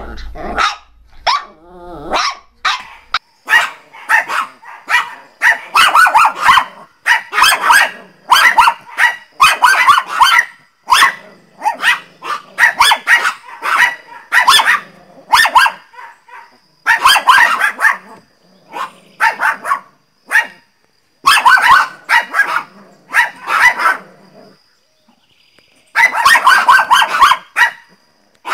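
Small dogs barking angrily: quick, sharp barks in runs of several with short gaps, a brief pause near the end and then another run.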